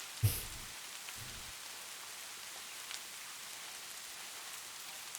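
Steady rain falling, an even hiss of rain ambience. A brief mouth sound stands out just after the start.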